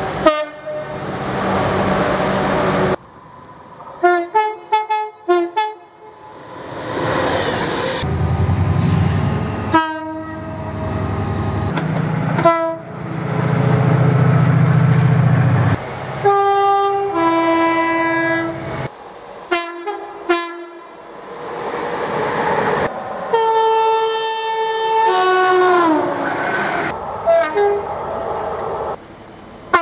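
Train horns in a string of separate recordings cut together, some of them two-tone horns. There are chords of several notes in long and short blasts, a quick run of short toots, and the rumble of passing trains in between. Near the end one horn drops in pitch as the train passes.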